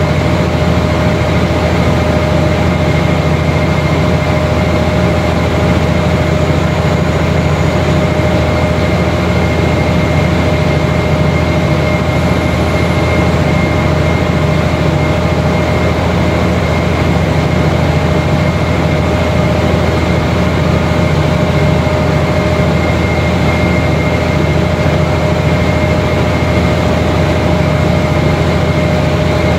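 Diesel-electric locomotive R138 running steadily while it charges its brake air reservoirs with the air compressor: a loud, unchanging engine drone with a constant whine over it.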